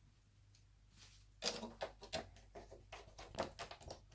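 Small, irregular clicks and taps of a screwdriver and screws being handled on a laptop chassis, starting about a second and a half in after a near-silent moment.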